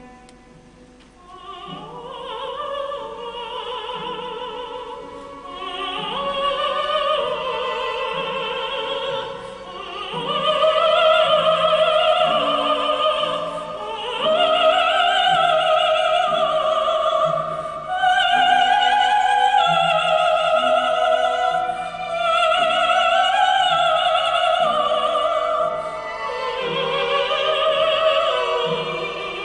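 Female classical voice singing in an operatic style with a chamber string orchestra. She sings long, sustained notes with vibrato in rising phrases, entering about a second in after a quiet moment.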